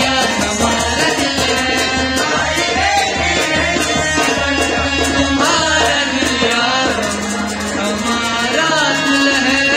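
Live folk singing by a man and a group of boys taking turns, with held keyboard chords, a hand drum and hand clapping keeping a steady beat.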